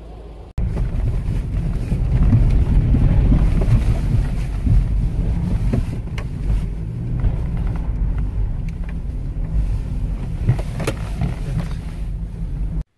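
A vehicle being driven, heard as a loud, heavy low rumble with a few sharp knocks. It starts abruptly about half a second in and cuts off suddenly near the end.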